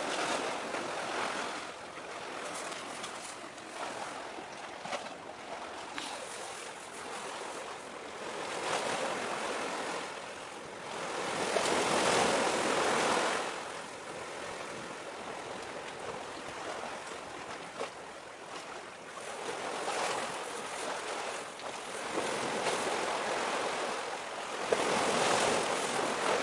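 Sea waves washing in against the shore, a steady hiss of water that swells and fades in surges every few seconds, the biggest about halfway through.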